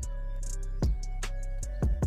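Background music with held notes over a regular bass drum beat.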